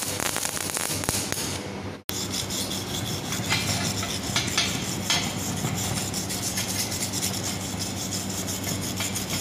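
MAG welding arc crackling for about two seconds, then, after a sudden cut, a steel wire brush scrubbed rapidly back and forth over the fresh fillet weld on a steel corner joint, cleaning the weld bead, with a few sharper scrapes along the way.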